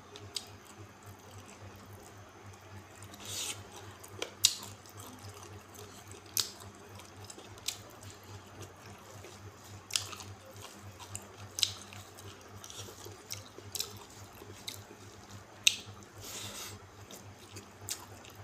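Close-up mukbang eating sounds: wet mouth smacks and chewing of rice and curry eaten by hand, with sharp clicks every second or two at irregular intervals. A faint steady low hum runs underneath.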